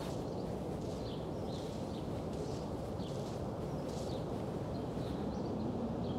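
Steady low outdoor rumble with faint, scattered short high chirps about once or twice a second.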